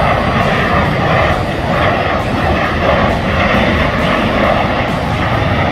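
Jet engines of two fighter jets flying overhead in close formation, a steady loud rushing jet noise.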